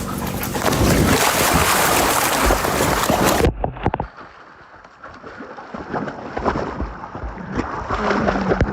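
Loud rushing water and wind noise on the microphone, cut off abruptly about three and a half seconds in. Quieter water sounds with scattered splashes and knocks follow.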